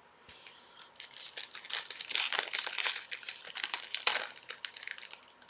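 A hockey card pack's wrapper being torn open and crinkled in the hands, a dense run of crackling that is loudest around the middle.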